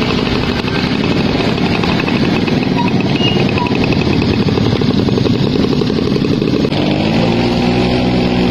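Old motorcycle's engine running as it rides along. About six and a half seconds in, the sound cuts abruptly to music with held notes.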